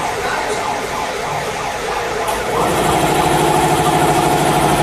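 Running machinery of a rotating self-control amusement ride: a dense mechanical noise, joined about two and a half seconds in by a louder, steady motor hum with several even tones.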